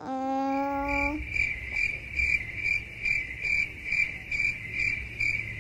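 Cricket chirping in a very regular rhythm, about two or three chirps a second, after a steady held tone in the first second. The chirping is typical of the crickets sound effect that vlog edits lay over an awkward silence.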